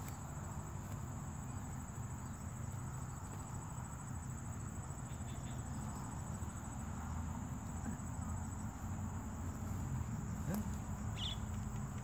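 Insects droning steadily at a high, even pitch, over a low rumble, with one short chirp near the end.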